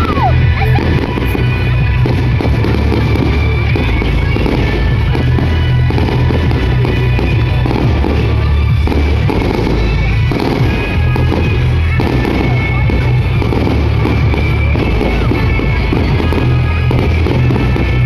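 Fireworks finale: repeated bangs and crackling bursts over loud music with a heavy, steady bass.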